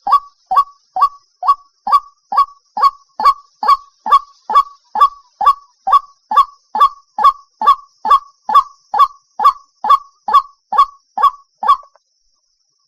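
White-breasted waterhen calling: a long, even run of short, loud notes that sweep sharply upward, about two and a half a second. The series stops about a second before the end.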